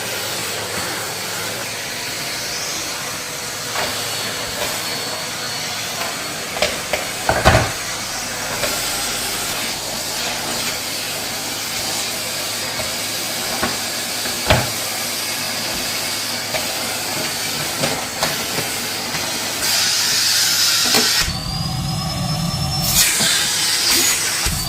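Cylinder vacuum cleaner running with a steady hiss, with a few sharp knocks and a change in the sound with more low rumble near the end.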